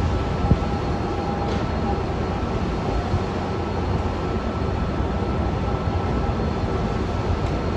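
Steady, unbroken rumble of jet aircraft noise, with faint steady whining tones over it.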